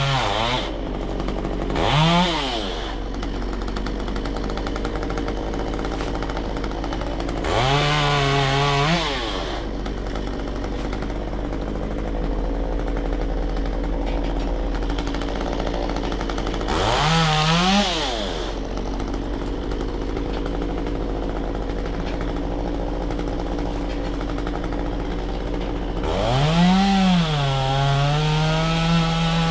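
Stihl MS193T top-handle chainsaw, a small two-stroke, idling between five quick rev-ups. In the longer ones the engine speed drops and holds steady as the chain bites into wood.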